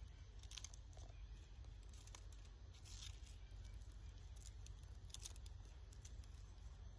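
Near silence: faint outdoor background with a steady low rumble and a few soft, scattered crackling ticks.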